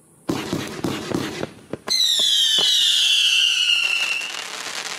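Raccoon Fireworks Stealth Bomber 500-gram cake firing: a sudden rapid burst of bangs, then about two seconds in a loud whistle that slides slowly down in pitch for a couple of seconds before fading.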